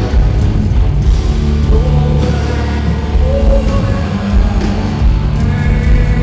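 Live rock band playing at full volume: distorted electric guitars, bass and drums, with faint singing.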